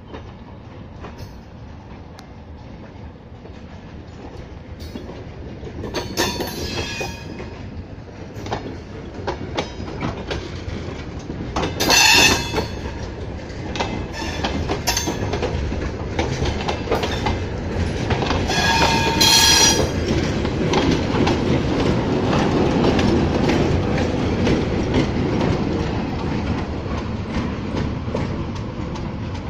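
Open-top freight wagons rolling slowly past with a steady clickety-clack of wheels over rail joints. There are three brief squeals of wheel flanges on the rails, about 6, 12 and 19 seconds in. A deeper rumble builds over the second half as the ChME3 diesel shunting locomotive draws near.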